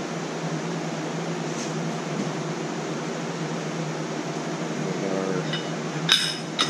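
Steady hum of air conditioning and fans in a small shop, with two sharp metallic clinks near the end as metal bait molds are handled.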